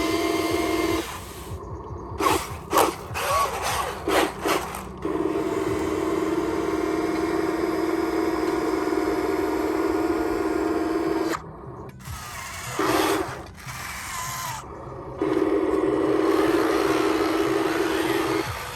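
Small electric motors of a radio-controlled construction model whining steadily, cutting out and starting again twice. In the pauses there are sharp clicks and scraping, like gears and dirt being moved.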